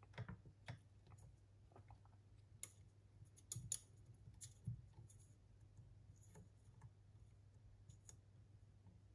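Faint, irregular clicks and light taps of small plastic and metal parts in an Akai GX9 cassette deck's tape transport being handled and checked, over a low steady hum.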